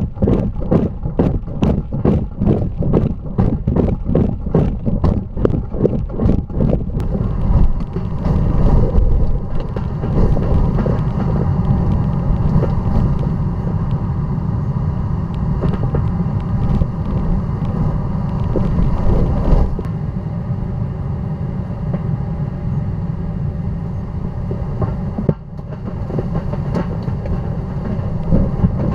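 Tornado wind roaring deep and steady over a ground-level tornado probe's microphone as debris blows past. For the first seven seconds or so it is broken by rapid knocks, about three a second.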